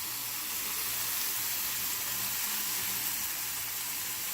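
Food frying in oil in a hot skillet, a steady sizzle.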